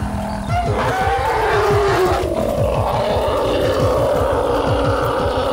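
An African bush elephant giving one long, loud, pitched call that starts about a second in and holds for several seconds, over a low pulsing rumble. It is an agitated call among elephants squabbling at a feeding spot.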